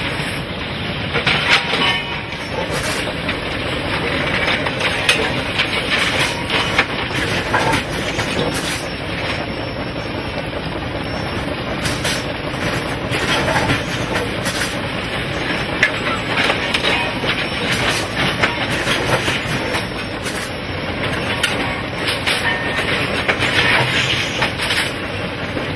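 Railway track-building machine working on the line: a steady mechanical rumble with frequent irregular metallic clanks and knocks.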